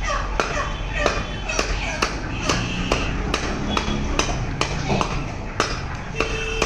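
Meat cleaver chopping chicken on a wooden log block, striking rapidly and evenly at about three chops a second.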